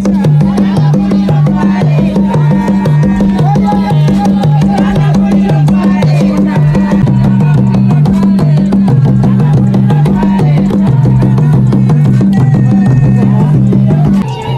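Background music: a song with a steady drum beat and a pulsing, repeating bass line, which cuts off suddenly near the end.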